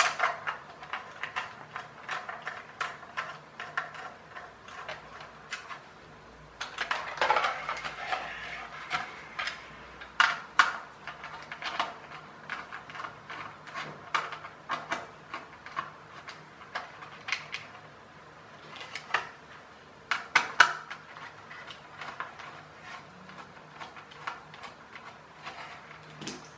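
Small screwdriver turning screws out of a plastic toy car's chassis, with irregular clicks and taps as plastic parts and small screws are handled on a table. A longer scraping rattle comes about seven seconds in.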